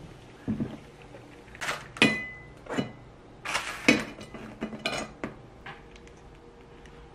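A metal spatula clattering and scraping against a wire oven rack and a ceramic plate as pizza slices are lifted onto the plate. It is a quick run of clinks, and one about two seconds in rings on with a metallic tone. The clatter dies down after about five seconds.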